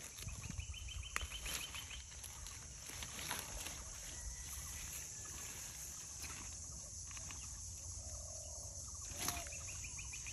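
Outdoor ambience: a steady high hiss, with a bird's short, rapid trilling call about half a second in and again near the end, over scattered soft clicks and rustles.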